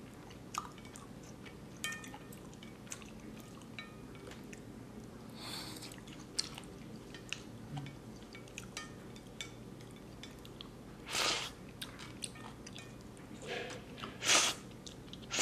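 A person chewing black bean sauce noodles close to the microphone, with small wet clicks, and two loud slurps of the noodles about 11 and 14 seconds in.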